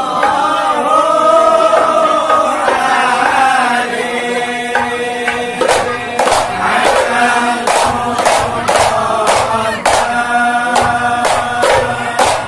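Hadrah al-banjari group: men's voices chanting in unison, joined about halfway through by rebana frame drums struck by hand in a steady beat.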